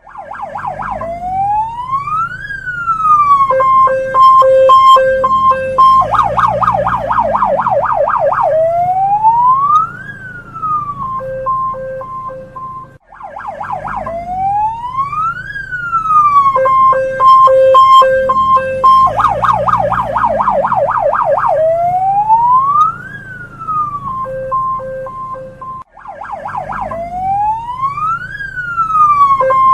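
Hong Kong police car siren cycling through its tones: a slow rising and falling wail, runs of short steady beeps, and a fast warbling yelp, the sequence repeating about every 13 seconds.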